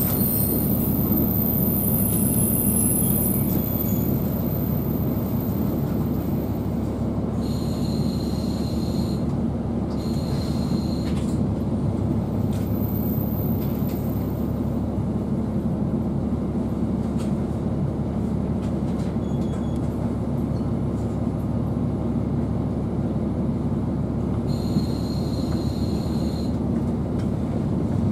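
A KiHa 40 diesel railcar running on the line, heard from inside the cabin: a steady rumble of engine and wheels on the track, with brief high squeals about 8 and 10 seconds in and again near the end.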